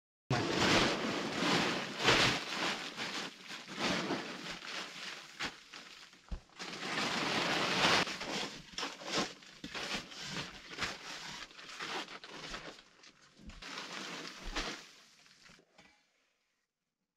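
Plastic tarp rustling and crinkling as it is pulled and handled, mixed with scraping and knocking of hand-tool work in sandy soil. The noise comes in dense spells, loudest at the start and again a little past the middle, and thins out near the end.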